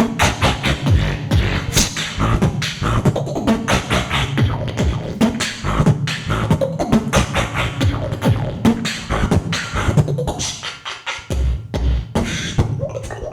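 Solo beatboxing: a human beatboxer making fast, dense drum hits and deep bass with the mouth, with a brief sparser stretch about ten seconds in.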